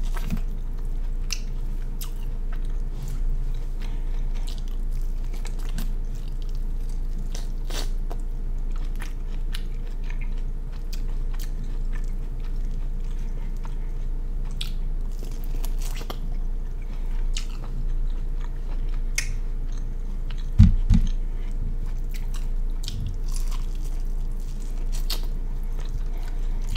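Close-up eating sounds: a person biting and chewing, with many small scattered mouth clicks over a steady low hum. A single low thump comes about three-quarters of the way through.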